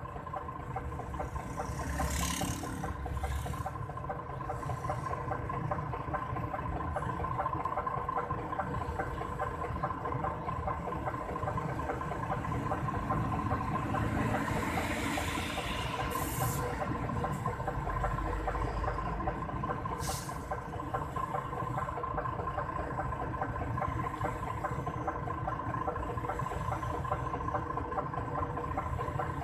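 DAF truck's diesel engine idling steadily, heard from inside the cab. Other traffic passes outside, with a heavy tanker truck going by about halfway through.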